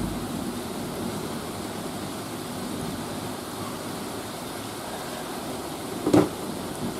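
Steady hiss of heavy rain in a thunderstorm, with a single sharp knock about six seconds in.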